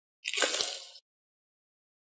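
Slime being squished by hand: one short squish starting about a quarter second in and lasting under a second.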